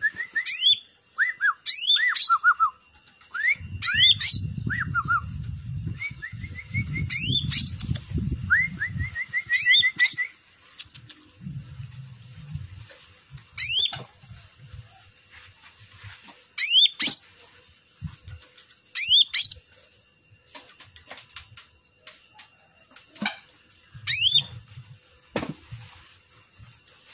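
A cucak ranting leafbird singing in short, loud bursts of rapid whistled sweeps and chirps, some with quick trills, repeated every second or two. There are stretches of low rumbling underneath.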